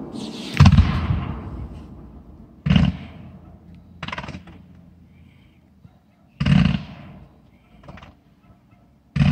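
Fireworks going off: four loud bangs two to four seconds apart, each trailing away, with smaller cracks between them.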